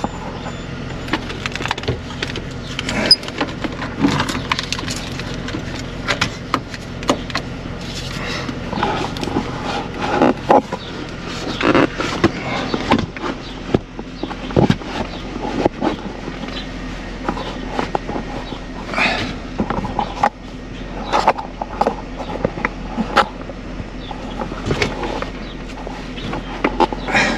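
2003 Chevrolet Silverado's 5.3 V8 running steadily with a low drone, with frequent clicks, knocks and rattles over it.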